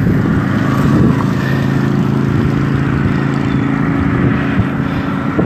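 An airplane flying overhead: a steady engine drone of several held tones, over a haze of wind and traffic noise.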